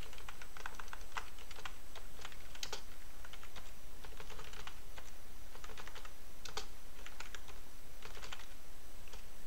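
Typing on a computer keyboard: irregular runs of keystrokes with short pauses between them.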